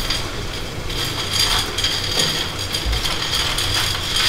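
Dry pasta tipped from a bowl into a saucepan of boiling water, the pieces rattling and clattering in irregularly over a steady hiss from the pans on the gas hob.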